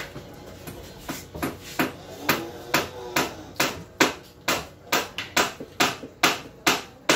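Hammer blows on the wooden hull of a boat under construction: a steady run of sharp strikes, about two a second, growing louder after the first second.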